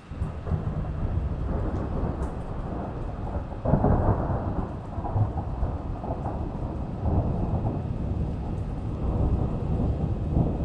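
Thunder rolling: a long, deep rumble that breaks in suddenly, swells to its loudest about four seconds in and keeps rumbling. Rain falls under it.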